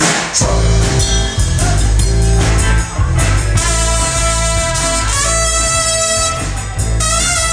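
A live rock band with guitar, bass and drums playing. About three and a half seconds in, a trumpet comes in with held, sustained notes over the band.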